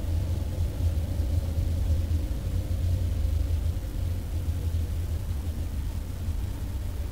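Car driving: a steady low engine and road rumble that slowly grows quieter.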